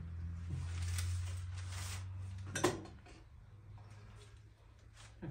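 Gloved hands pressing and dimpling pide dough on baking paper, the paper rustling, with one sharp knock about two and a half seconds in. A low steady hum underneath drops away about three seconds in.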